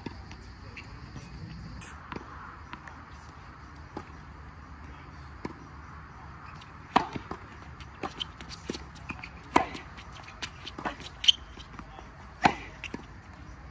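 Tennis rally: a tennis ball struck by rackets and bouncing on a hard court. There are sharp pocks from the nearer racket about seven, nine and a half and twelve and a half seconds in, with fainter hits and bounces between them. A faint steady high tone sounds in the first two seconds.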